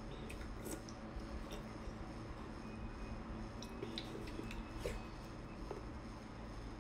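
Wet mouth sounds of someone biting and chewing a large chunk of soft, fatty pork held in the hands: scattered short smacks and clicks over a steady low hum.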